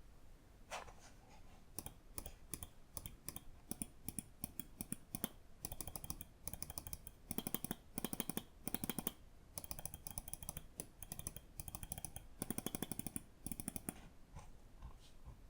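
Lamzu Inca gaming mouse buttons clicking: single clicks at first, then fast runs of rapid clicks from about six seconds in, with short pauses between runs.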